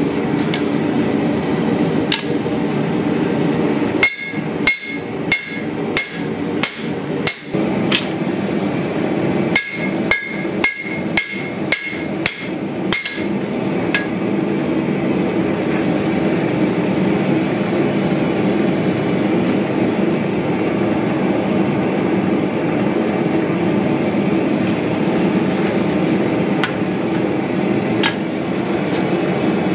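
Hand hammer striking a red-hot steel bowie knife blade on an anvil. Two runs of quick blows, about two a second, each with a high anvil ping, come a few seconds in and again near ten seconds, with only a few lone knocks later. A steady noise runs underneath.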